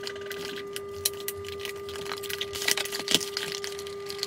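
Cardboard packaging being opened and handled: irregular scraping, rustling and light clicks and taps of card against card, over a faint steady hum.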